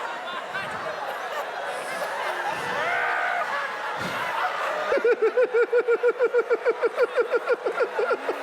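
People laughing together in a large meeting, several voices overlapping. About five seconds in, one person breaks into a rapid, high-pitched run of laughter, about eight "ha"s a second, lasting some three seconds.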